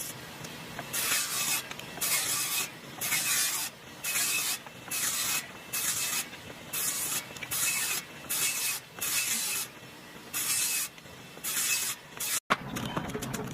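A series of short hissing strokes, about a dozen, coming roughly once a second with brief pauses between them. Near the end it cuts to a denser, continuous crackling rustle.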